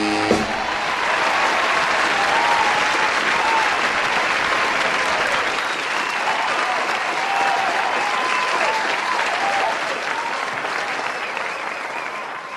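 Audience applauding and cheering just after the final chord of a big-band swing number, which cuts off at the very start; the applause fades out near the end.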